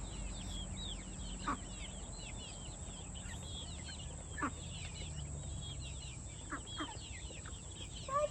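A flock of chickens calling: a constant chatter of short, high, falling chirps, with a few louder single clucks about one and a half, four and a half, and six and a half to seven seconds in.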